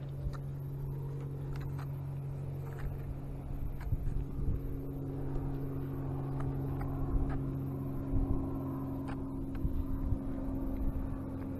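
A steady low motor hum with scattered light clicks and scrapes, typical of a sand scoop being worked into beach sand while digging out a detector target.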